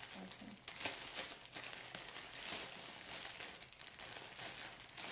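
Thin clear plastic bag crinkling and rustling in irregular bursts as hands unwrap a soft bun from it.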